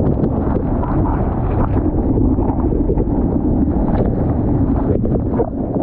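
Breaking surf rushing and splashing right over the microphone at water level, a loud, dense, muffled wash of churning whitewater.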